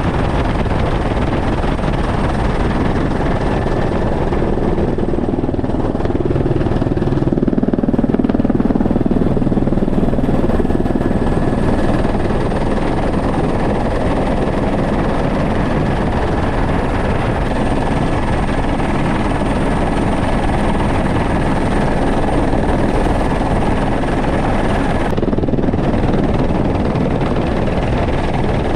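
Helicopter in flight: loud, steady rotor and engine noise heard from inside the cabin with the side door open, with a thin high whine holding steady over it.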